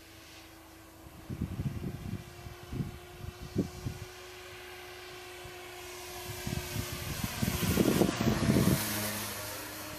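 FMS P-40 Warhawk radio-controlled model plane's electric motor and propeller whining in flight. The whine grows louder as the plane comes in close overhead about eight seconds in, then drops in pitch as it passes.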